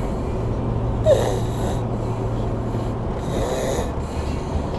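A sleeper snoring, two snorting breaths about two seconds apart, each with a short squeaky edge, over a low steady hum.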